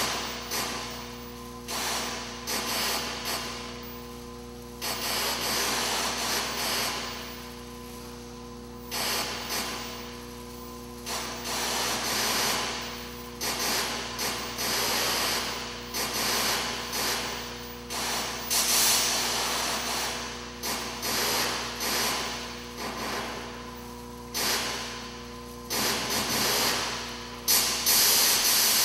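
Sampled electronic noise sounds, hissing bursts that start suddenly and fade over a second or so, set off one after another by an acceleration sensor on a dancer's arm as he moves. A steady low hum runs under them.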